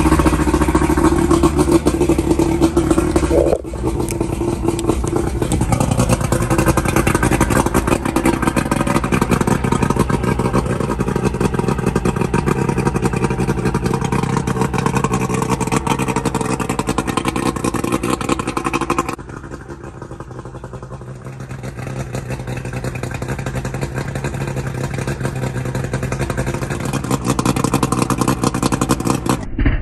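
Johnson V4 two-stroke outboard motor running on flush muffs fed by a garden hose, rinsing salt water out of its cooling system.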